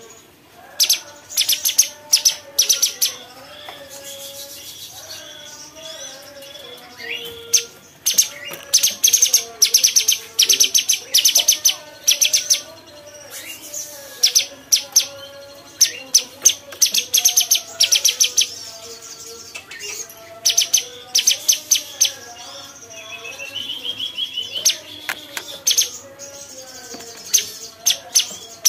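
Cucak cungkok songbird singing: bursts of rapid, high-pitched trilled chattering repeated every second or two, over a steady run of lower warbling notes.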